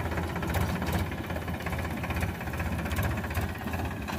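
Powertrac Euro 50 tractor's three-cylinder diesel engine running steadily while towing a thresher, with a few sharp rattles.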